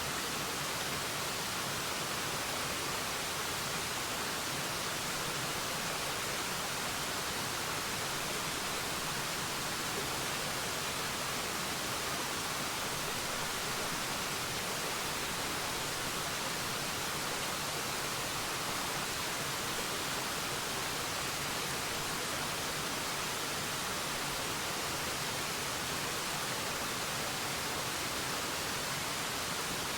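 Waterfall: a steady, even rush of falling water, a hiss that stays level throughout.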